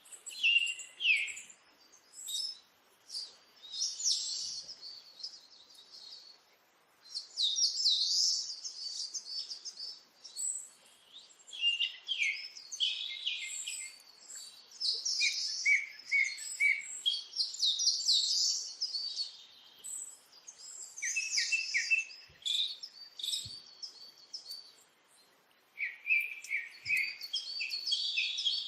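A group of small birds chirping and twittering, in busy bursts of quick high calls with short lulls between them.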